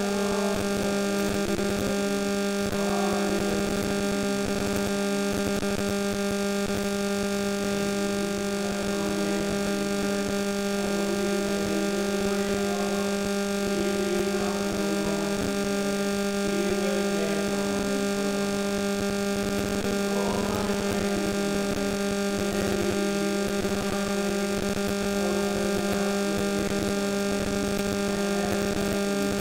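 Steady electrical mains hum with a buzzy edge, held at one pitch without change, with faint wavering sounds beneath it.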